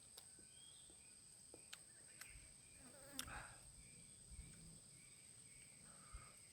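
Near silence of outdoor ambience: a faint, steady high-pitched insect drone, with a few sharp soft clicks and one brief louder rustle about three seconds in.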